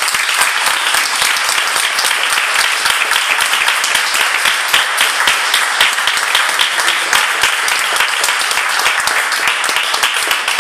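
A small audience applauding steadily, with dense rapid handclaps, some of them close by.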